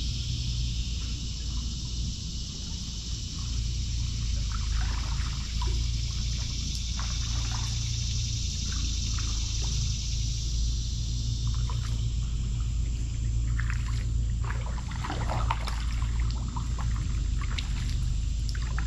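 Kayak paddle blades dipping into still water with small splashes and drips, a few at first and coming more often near the end as the paddler draws closer. Under it are a steady low rumble and a steady high hiss.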